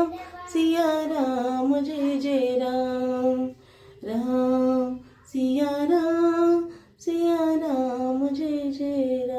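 A woman singing a devotional chant to Rama alone, without instruments, in four long drawn-out phrases with short breaks between them.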